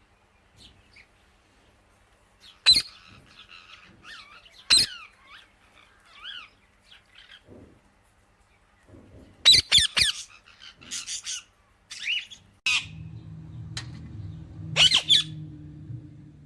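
A parrot giving several loud, sharp squawks, with softer chirps and warbling notes in between. About two-thirds of the way in, a steady low hum starts up underneath.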